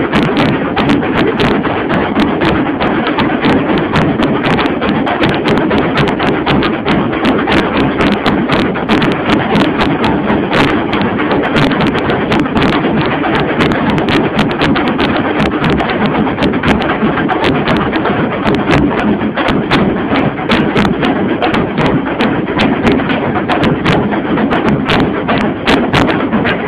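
Tassa drum ensemble playing: rapid, unbroken stick strokes on tassa drums over a big bass drum, loud and steady throughout.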